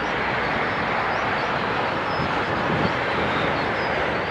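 Jet engines of an Airbus A330-300 giving a loud, steady rushing roar as the airliner rolls out along the runway just after touchdown.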